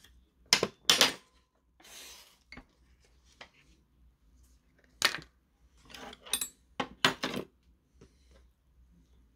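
Several sharp clinks and knocks of a metal fork and metal chopsticks against an instant-noodle cup and tableware, loudest about a second in and again about seven seconds in, with a short rustle about two seconds in.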